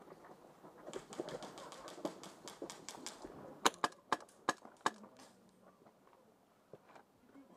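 Airsoft gunfire: a steady run of quieter, rapid clicks, about five a second, lasting a couple of seconds, followed by five louder, sharp single shots spread over about a second.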